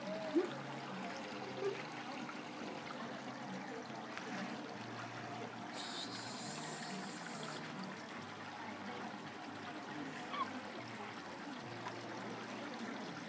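Water trickling steadily in a fish-spa tank, over a low steady hum, with a short hiss about six seconds in.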